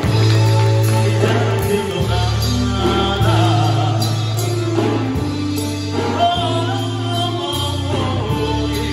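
Music with singing over held bass notes that change every second or two, accompanying a circus aerial strap act.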